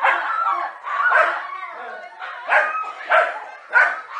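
Dogs barking at a snake they are confronting: about five loud, sharp barks in quick succession, warning and aggressive barking.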